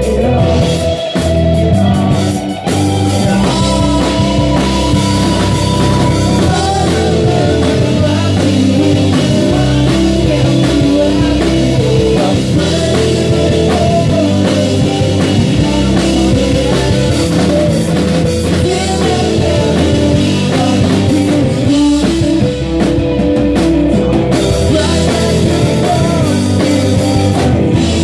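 A live rock band playing amplified: electric guitars, bass and a drum kit together.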